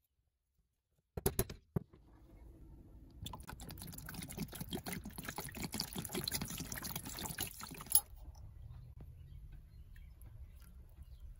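Water poured from a plastic bottle into a plastic tub, splashing steadily for about five seconds from roughly three seconds in, then stopping abruptly. A few sharp knocks come about a second in.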